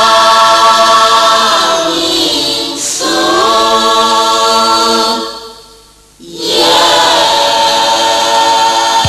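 Gospel choir singing long held chords. The voices break off for about a second midway, then the next phrase comes in.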